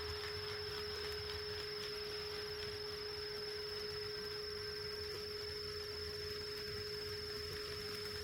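HO-scale model trains running: a low rumble of wheels on track under a steady electrical whine made of two constant tones, one mid and one high.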